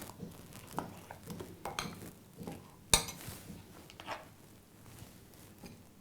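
A spoon clinking and knocking against a bowl while stirring batter: scattered soft clicks, with one sharper clink about three seconds in.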